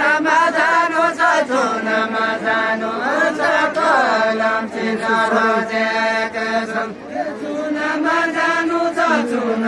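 Deuda folk singing: a voice singing long held notes that slide between pitches, in drawn-out phrases.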